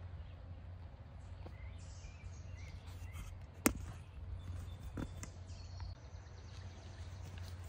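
Outdoor ambience: a steady low rumble with a few faint bird chirps, broken about halfway through by a sharp knock from the phone being handled and a softer one a second later.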